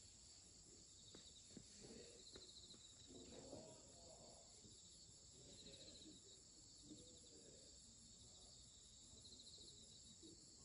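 Faint outdoor insect chorus: a steady high-pitched buzzing with short pulsed chirping trills that recur every few seconds, like crickets.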